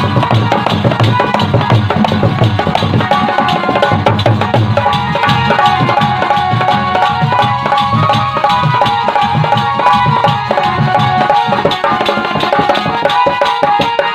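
Instrumental break of an Indian folk song: a fast, steady hand-drum rhythm, with a melody line joining over it about five seconds in.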